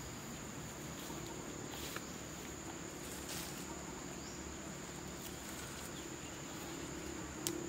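Insects trilling steadily at one high pitch, with soft rustling of grass and plants underfoot and a sharp snap near the end.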